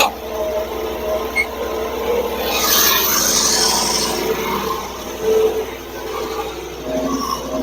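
Portable band sawmill running, its engine humming steadily while the band blade saws through a log; the sawing grows briefly louder about three seconds in.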